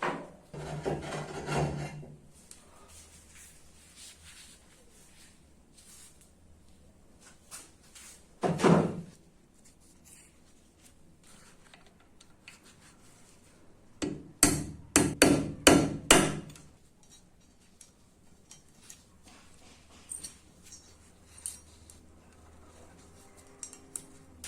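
Hand-tool strokes rubbing and scraping on rusty metal parts of a drill holder. One longer scrape at the start, a single short stroke near the middle, then five quick strokes in a row about three-quarters through, with small handling clicks between.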